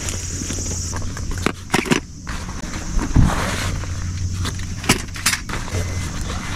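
Camping gear being unpacked from a backpack by hand: fabric and bag rustling, with several sharp knocks and clinks as items are pulled out and set down on the tent floor.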